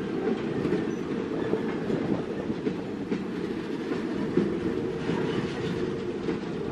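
Freight train's container wagons rolling past in a steady rumble, their wheels clicking irregularly over the rail joints.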